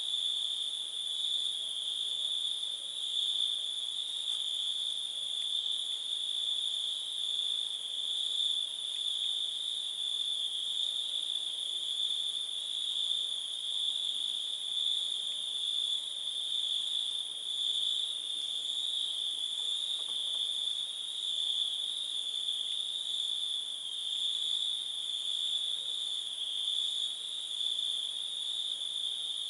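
A chorus of crickets singing at night: a steady, unbroken high-pitched trill that does not pause.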